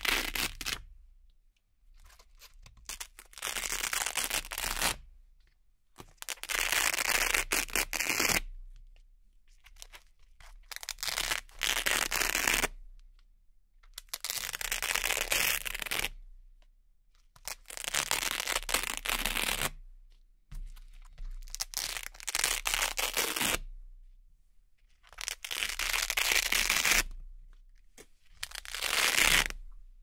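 Velcro hook-and-loop fastener being peeled apart, fabric pieces ripped off their backing again and again: about nine long, crisp rasping rips with short pauses between them.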